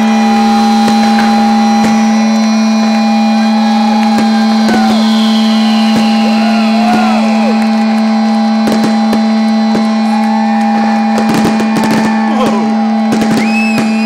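Fireworks going off: short whistles gliding up and down, then a dense run of bangs and crackles in the second half, all over a loud steady hum.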